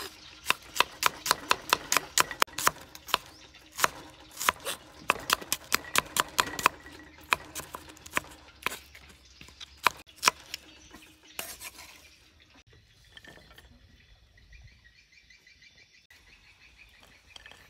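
Cleaver slicing red onion on a wooden chopping block: quick sharp knocks of the blade on the wood, about three a second, stopping about eleven seconds in.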